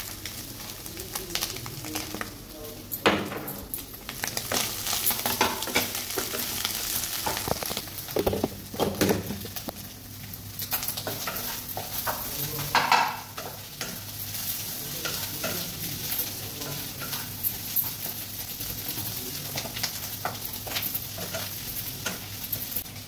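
Wooden spatula stirring and scraping egg and vegetables around a kadai over a gas flame, with the food sizzling steadily. Scrapes and knocks of the spatula against the pan come again and again, louder ones about 3, 9 and 13 seconds in.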